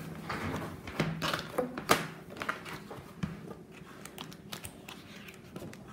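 Scattered clicks and light taps of plastic nail-art supplies and a plastic organiser case being handled on a work table, the sharpest about one to two seconds in, over a faint steady low hum.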